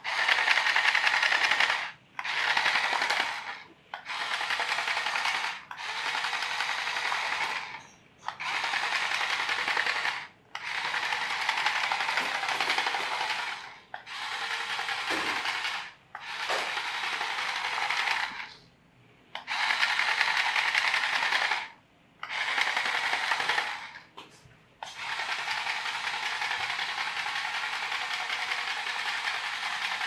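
Toy radio-controlled bulldozer's small electric motors and plastic gearboxes whirring and rattling as it drives on its plastic tracks, in runs of one to three seconds with short stops between, then running without a break for the last few seconds.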